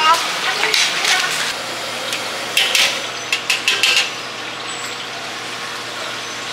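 Oyster fritters frying in a wok of hot oil with a steady sizzle, and metal utensils and pans clinking sharply several times in the first two-thirds.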